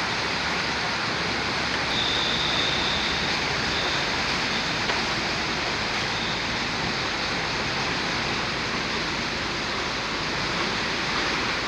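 Fast-flowing floodwater rushing, a steady, unbroken noise of moving water.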